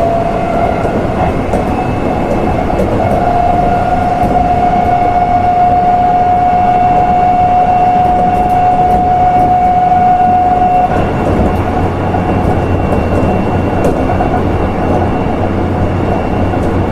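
Odakyu 1700 series electric train running, its Mitsubishi GTO-thyristor VVVF inverter giving a steady whine over the wheel and rail noise. The whine rises a little at first, holds one pitch and cuts off suddenly about eleven seconds in. The running noise carries on after it with a low hum and a few faint clicks.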